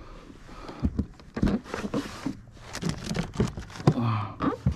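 An irregular string of sharp clicks and knocks from plastic fishing gear being handled aboard a plastic fishing kayak. Toward the end it comes from a hard plastic box in the angler's lap being worked.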